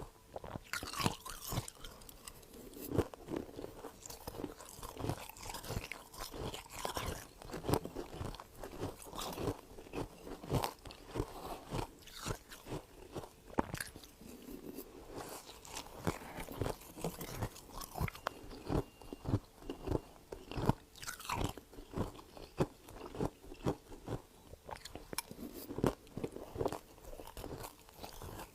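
Freezer frost being bitten and chewed close to the microphone: a steady run of crisp, irregular crunches.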